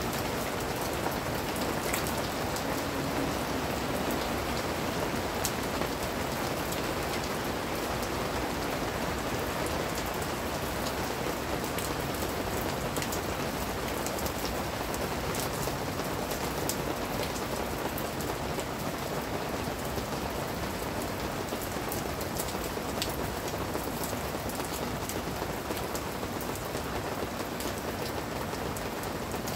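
Steady rain falling on garden plants and stone paving, a constant hiss dotted with many sharp individual drop ticks.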